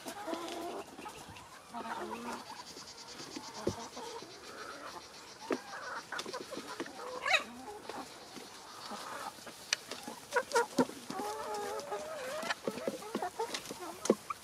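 Backyard chickens clucking while they eat, many short calls overlapping, with scattered sharp taps of pecking.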